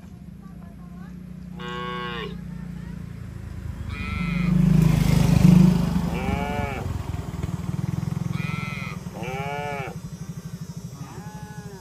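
Cattle mooing, about six separate calls, over the steady running of a motorcycle engine. The engine noise swells loudest about five seconds in.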